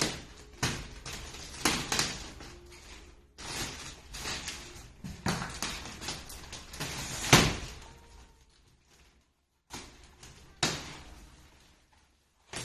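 Repeated knocks, bumps and clatters, the loudest a sharp bang about seven seconds in, then a few more knocks with quiet between them.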